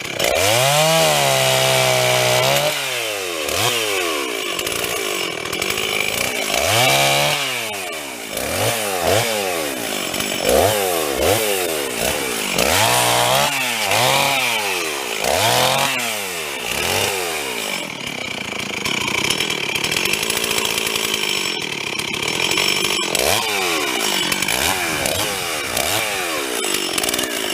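Gas chainsaw revved up and down again and again, about once every second or two, while cutting wood. It runs more evenly for the last third.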